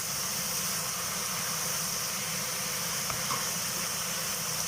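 Chicken sizzling in spiced oil in the pan, a steady even hiss.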